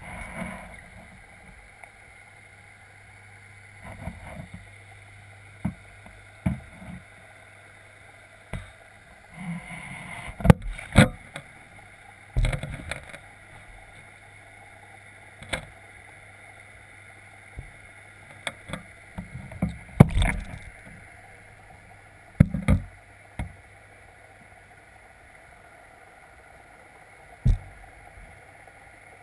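Underwater sound heard through a camera's waterproof housing: a steady low hum with a dozen or so irregular knocks and thumps, louder ones about a third and two thirds of the way in, as fish bump and brush against the housing.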